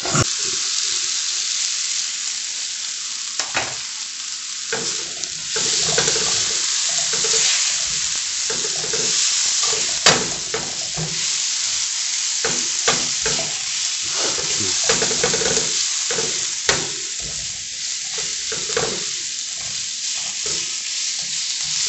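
Diced onion, red pepper and broccoli sautéing in a nonstick skillet: a steady sizzle, with the irregular scrape and tap of a spatula stirring them against the pan.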